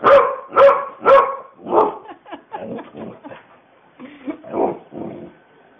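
A pet dog vocalising in a 'talking' way: three loud, pitched woofs about half a second apart, then a run of shorter, quieter vocal sounds in uneven bursts.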